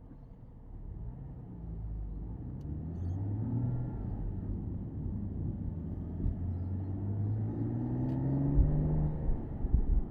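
Porsche Boxster S 987.2's 3.4-litre flat-six engine accelerating, its note rising steadily in pitch and growing louder, then dropping away near the end with a few low thumps.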